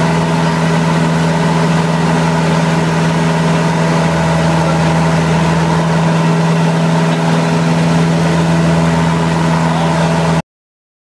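Van's RV-8 light aircraft's piston engine and propeller running at a steady speed, heard from inside the cockpit as an even drone that cuts off suddenly near the end.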